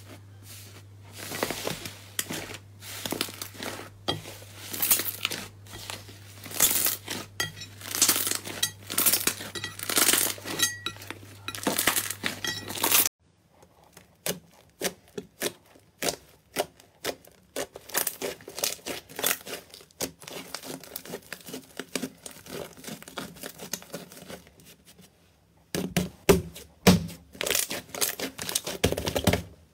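Hands pressing fingertips into a thick slime, giving dense crackling and popping over a faint low hum. About halfway through this stops and softer, sparser squishing and clicking follow as a soft clay-like slime is kneaded and squeezed, with louder pops near the end.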